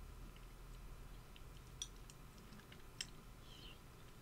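Quiet eating with a spoon: a few faint clicks of the spoon against a bowl of oatmeal, two of them clearer, about two and three seconds in.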